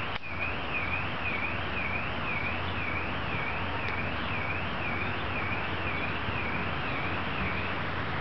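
Car alarm warbling, its tone sweeping evenly up and down about twice a second and stopping near the end, over a steady background hiss.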